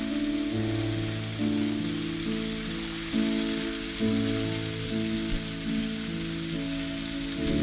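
Food frying in oil in a pan, a steady sizzle, with background music over it.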